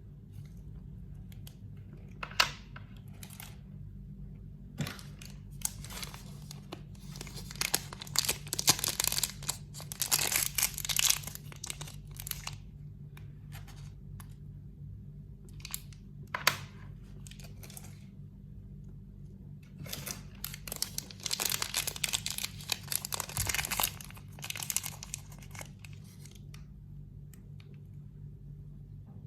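Packaging being torn and crinkled open by hand, in two long spells of rustling with a few sharp snaps between them. A steady low hum runs underneath.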